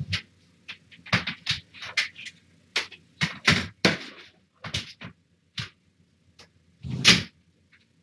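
A string of irregular knocks, clatters and scrapes from objects being handled in a small room: about a dozen short sounds, with the loudest and longest about seven seconds in.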